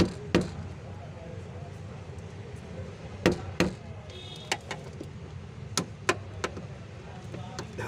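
Hand tools and metal parts knocking and clicking, about a dozen sharp short knocks at irregular intervals over a steady low hum, while fuel-system parts are being fitted.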